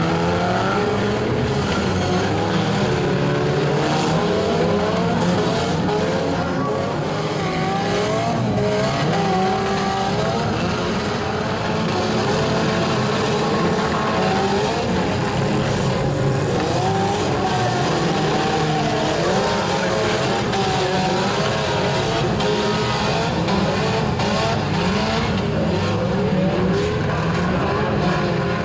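Several four-cylinder hatchback engines revving up and down at once in a demolition derby, with occasional sharp bangs of cars hitting each other.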